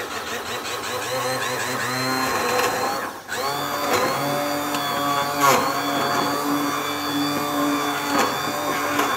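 Electric hand blender with a whisk attachment running in a milk drink, its motor pitch wavering. It stops briefly about three seconds in, restarts, and then runs steadily.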